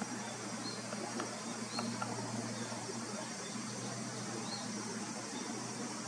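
Steady outdoor background of hiss and low hum, with a few faint, short high chirps, about three, scattered through it.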